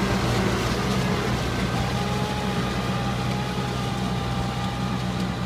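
Farm tractor engine running at a steady drone as it pulls a tillage implement through a flooded rice paddy.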